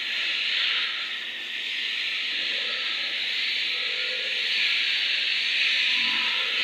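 Steady hissing noise, a little louder from about two seconds in.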